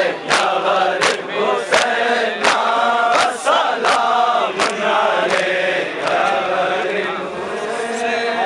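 A crowd of men chanting a Balti noha (Shia Muharram lament) in unison, over sharp rhythmic slaps of matam, palms striking chests, about three strikes every two seconds. The slaps grow fainter in the last couple of seconds while the chant carries on.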